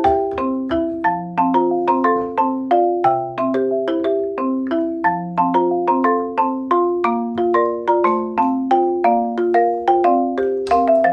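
Background music: a light, bouncy tune of struck notes on a marimba-like mallet instrument, several notes a second over a slower bass line.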